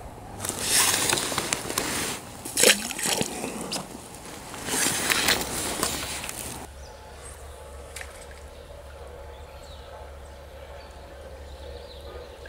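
Water splashing and sloshing in three loud bursts over the first six seconds as a hand-held brown trout goes back into the stream. After a sudden change, a quieter steady stream murmur with a low hum.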